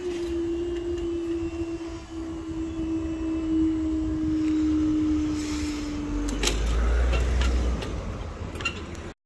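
Level crossing barrier mechanism raising the boom: its motor gives one steady hum that cuts out about six and a half seconds in, with a few clunks as the boom comes upright. A low rumble follows briefly.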